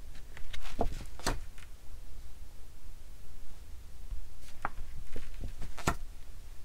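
Low steady hum of room tone, with four short clicks or taps spread through it.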